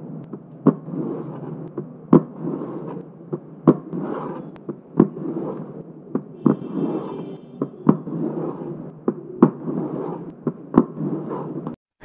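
Taps and a pen scraping on a cardboard box, used to imitate the heartbeat in mitral stenosis. Sharp taps for the heart sounds repeat about every one and a half seconds, and a rough, low rumbling scrape fills the gaps between them, standing in for the mid-diastolic murmur that follows the opening snap.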